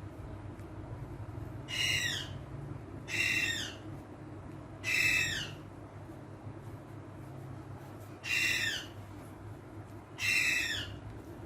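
A green parrot giving five short calls, a second or more apart, each dropping in pitch.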